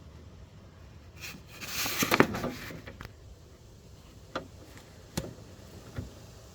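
Hands rummaging inside a truck door panel: a stretch of rustling and scraping with clicks about two seconds in, then three separate sharp clicks.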